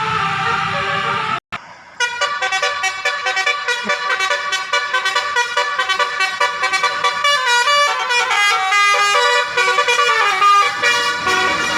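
Bus 'telolet' horn, a multi-tone air horn, playing a quick melody of short stepping notes. It cuts out briefly about a second and a half in, then the tune carries on.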